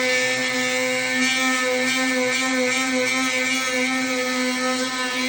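Electric sander running steadily on an old wooden window frame, an even buzzing hum that holds one pitch.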